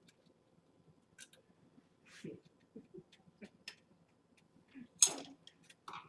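Faint, irregular clicks and ticks of stainless hose clamps being threaded around an exhaust heat shield by hand, with a louder clink about five seconds in.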